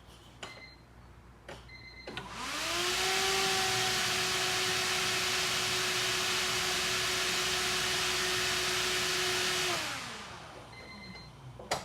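Newly installed Walbro 255 in-tank electric fuel pump priming at key-on. It spins up with a quickly rising whine and hiss, runs steadily for about seven seconds, then winds down: the pump is working and building fuel pressure. Faint short beeps come just before and after.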